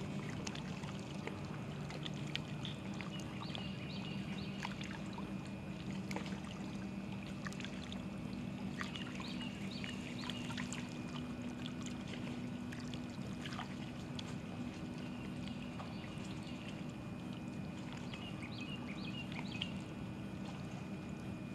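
Waterside ambience: a steady low hum, with three short runs of high chirps about three, nine and eighteen seconds in.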